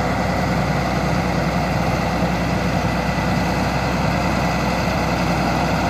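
Large engine running steadily at a constant speed, a low even hum with no change in pitch.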